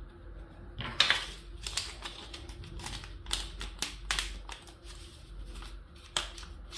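Hard plastic toy track pieces clicking and clattering in the hands as a length of flexible track is handled and snapped into its plastic end pieces. The sharp clicks come at an uneven pace, with louder ones about a second in and again near the end.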